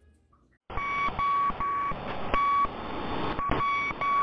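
Radio static hiss cuts in suddenly, with short high beep tones pulsing over it a few times a second at uneven spacing.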